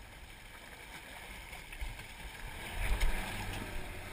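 Wind on the microphone and water moving along a fishing boat's hull, with a low buffeting rumble swelling about three seconds in.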